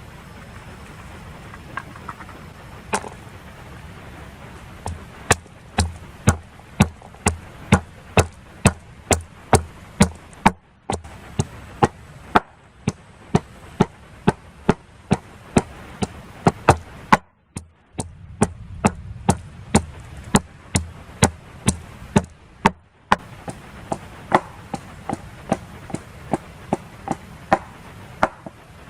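Knife chopping on a wooden board in steady, even strokes, about two a second, over a steady rain-like background noise.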